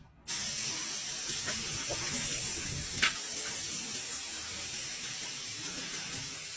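Paint sprayer spraying: a steady hiss that starts a moment in, with one brief click about three seconds in.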